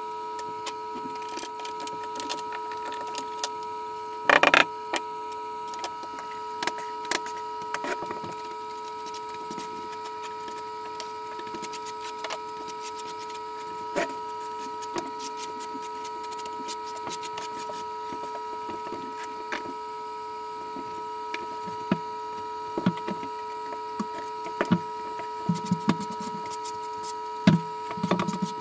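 Scattered knocks and clicks of floor tile-setting work, with tools and plastic leveling clips being handled, over a steady whine. A loud clatter comes about four seconds in, and a run of knocks near the end.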